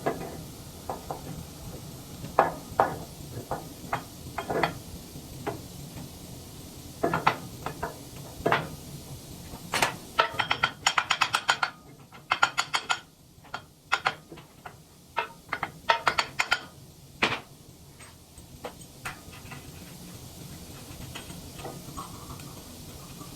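Scattered metal knocks and clinks of hand tools against the steel anvil and mounting of a wood chipper as the anvil is fitted, with a fast run of clicks about ten seconds in and another about sixteen seconds in.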